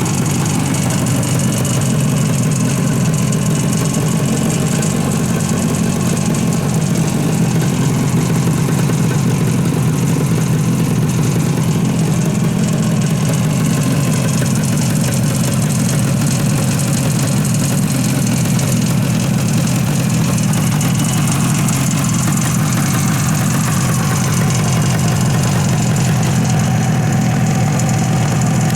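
Suzuki T350's two-stroke twin engine idling steadily on its first run after a full restoration that involved freeing seized pistons.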